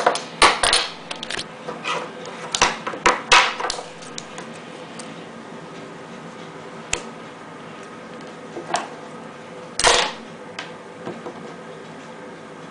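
Handling noise from clay and scissors on a wooden tabletop: a quick run of sharp taps and clicks in the first few seconds, then single ones a few seconds apart, the loudest about ten seconds in, over a steady faint hum.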